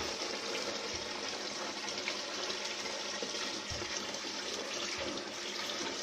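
Water from a homemade cement tabletop waterfall fountain pouring in thin streams off the spillway and splashing steadily into the pool basin below.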